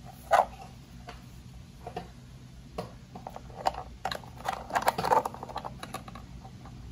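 Plastic clicks and knocks of a snap-on wheel cover being pressed and worked onto a Tesla CyberQuad for Kids wheel hub by hand: a sharp click near the start, scattered ticks, then a cluster of clicks about four to five seconds in.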